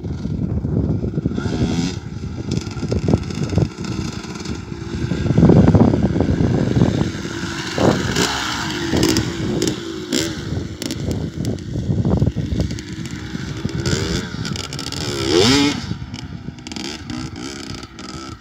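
Kawasaki KX 250 dirt bike engine revving hard as it climbs loose sand, its pitch rising and falling with the throttle. It is loudest about a third of the way in and sweeps quickly up in pitch near the end.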